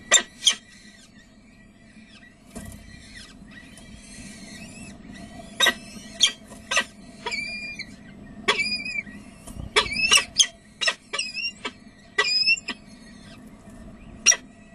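Downy peregrine falcon chicks calling with short, shrill squeals while being fed, in scattered bursts: two at the start, a rapid run through the middle, and one near the end. A steady low hum runs underneath.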